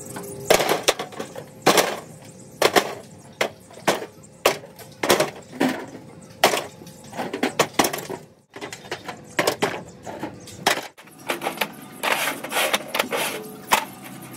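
An irregular series of sharp knocks, about one or two a second, with two short breaks.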